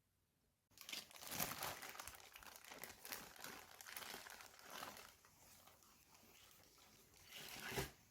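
Plastic packaging crinkling and crackling as it is handled and opened, starting abruptly a moment in, with a louder crunch near the end.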